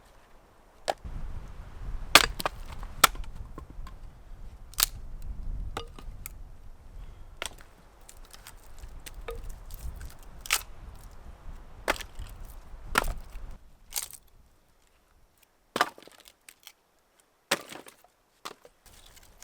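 Firewood being chopped or split at camp: a series of sharp wooden knocks and cracks at irregular intervals of one to two seconds, over a low rumble that stops about two-thirds of the way through.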